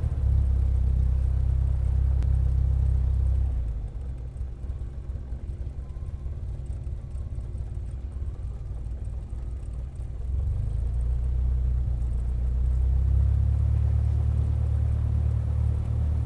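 Propeller plane engine running as a deep, low rumble that drops in level about four seconds in and builds up again about ten seconds in.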